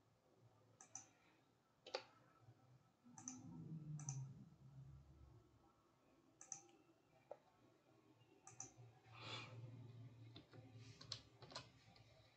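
Faint, irregular clicks of a computer mouse and keyboard keys, about a dozen scattered single clicks, as an expression is edited in software.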